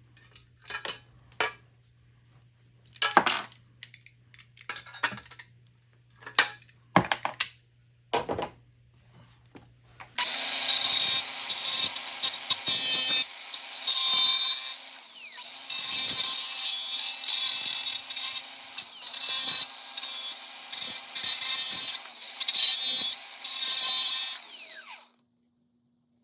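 Metal parts and tools clink and knock as they are handled. About ten seconds in, a power tool starts working the metal mounting plate, running loudly for about fifteen seconds before stopping abruptly.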